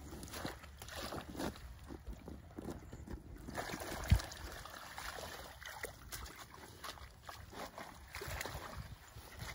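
Shallow water sloshing and splashing in irregular bursts, mixed with rustling, as people wade and work through a ditch thick with water spinach. A single sharp low thump comes about four seconds in.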